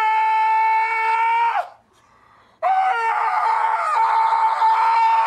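A man screaming in a long, high-pitched falsetto held on one pitch. It breaks off about a second and a half in, and after a short gap a second, raspier scream starts and holds.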